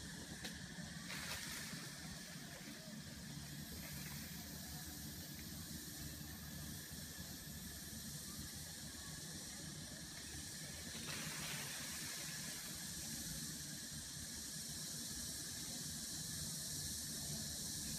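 Steady high hiss of tropical forest ambience, broken by two brief noisy bursts, one about a second in and one around eleven seconds.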